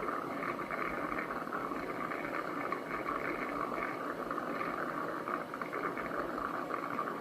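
Cuckoo Power Clone robot vacuum's spinning mop pads being washed in its all-in-one station: a steady, even whirring hiss that runs without a break.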